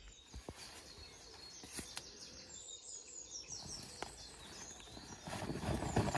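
Small woodland birds singing at dawn: many short, high chirps that fall in pitch. Under them are a few sharp clicks and the rustle of tent fabric and gear being packed, with the rustle growing louder near the end.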